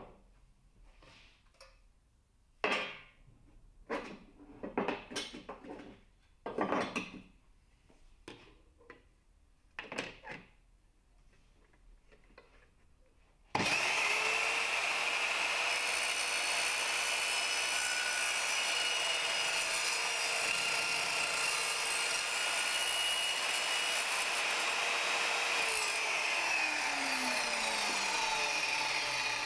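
Evolution R210SMS+ sliding mitre saw. First a few knocks and clatter as work is set against the fence, then the motor starts abruptly about 13 seconds in. It runs steadily with a high whine for about 12 seconds through a cut, then spins down, falling in pitch, near the end.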